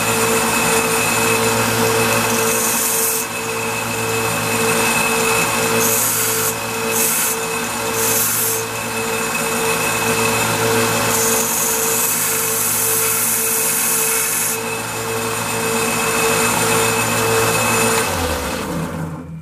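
Small vertical belt grinder running steadily while a stainless steel bolt is ground on it, with several stretches of harsh grinding hiss as the steel is pressed to the belt. About a second before the end the motor is switched off and runs down.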